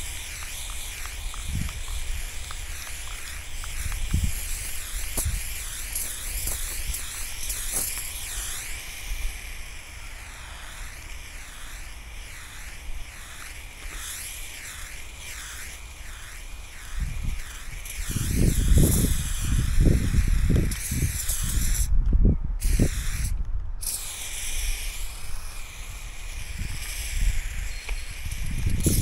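Aerosol spray paint can hissing steadily as fill-in colour is sprayed, the hiss wavering in tone as the can sweeps. It breaks off twice, briefly, a little past the middle. Low rumbling gusts come in over the last third.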